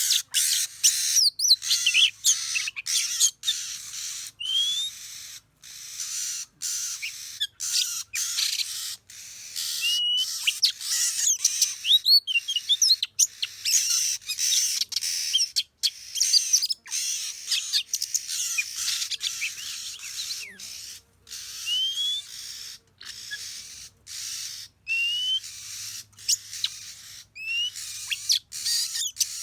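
Oriental magpie-robin song: a long run of varied whistled phrases with quick rising and falling notes and chirps. The sound cuts out abruptly many times, for short moments.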